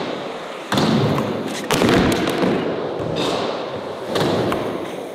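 Skateboards popping and landing: a run of about five sharp knocks, with steady noisy rolling between them.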